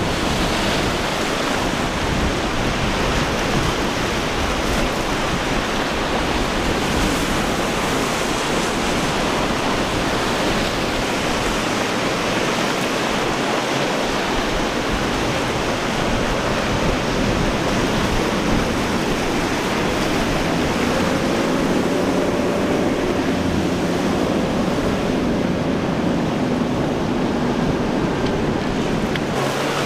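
Steady rush of wind and breaking surf. About two-thirds of the way in, the faint hum of a boat's twin outboard engines comes up beneath it.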